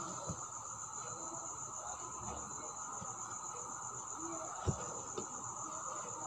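A steady high-pitched cricket trill, with a few faint short taps near the start and about two-thirds of the way through.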